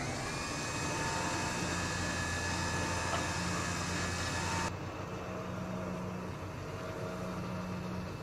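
Truck-mounted electric winch running, paying out its cable. It starts with a click and runs with a steady whir and whine, then stops abruptly about four and a half seconds in. The pickup's engine idles under it throughout.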